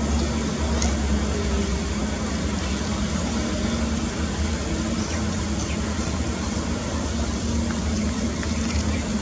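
Steady low mechanical hum, like a motor or engine running without change, over constant background noise.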